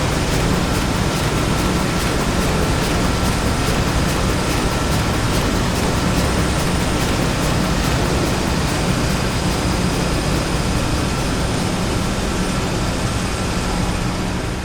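Factory machinery ambience sound effect made for a stage play: a dense, steady machine din with a low hum, a faint thin whine and light, regular ticking running through it.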